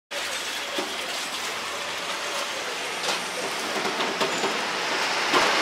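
Street ambience: a steady rush of traffic-like noise, with a few light knocks and clicks, one less than a second in and several between three and four and a half seconds in.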